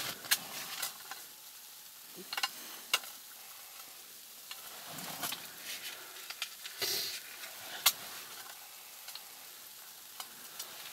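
Matches being struck on a matchbox and fumbled at a small gas burner: short scratches and small clicks here and there, none of them catching. The matches fail to light.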